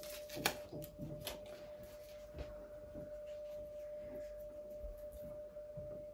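A steady, faint high-pitched whine, with a few soft clicks and rustles of Christmas-tree decorations being handled and hung, mostly in the first second or so.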